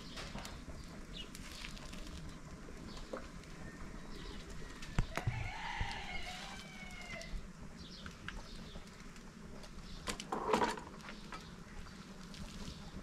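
A rooster crows once midway, a single arched call of about two seconds. Around it are scattered light knocks from stirring a large cooking pot with a ladle, and a short louder clatter near the end.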